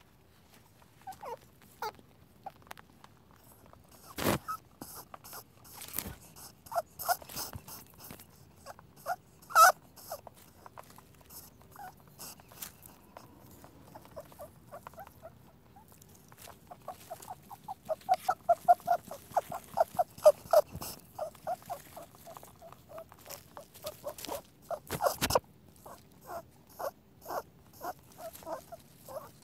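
Rabbit noises: irregular short squeaks and clicks, with a fast run of them past the middle and a few sharper clicks in between.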